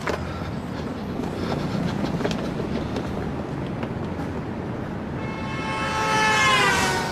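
Steady vehicle rumble with a click right at the start. Over the last two seconds a loud, high tone with many overtones swells and drops slightly in pitch.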